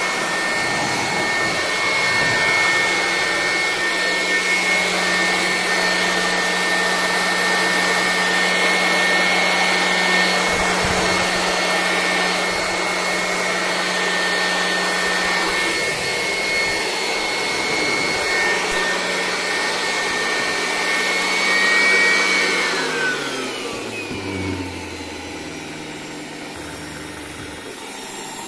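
Polymake 400 W handheld electric air blower running steadily with a rush of air and a high whine, then switched off near the end, its whine gliding down as the motor and fan wind down.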